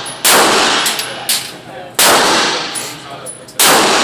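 Pistol shots fired one at a time, three in quick succession about a second and a half apart, each a sharp bang with a long echoing tail.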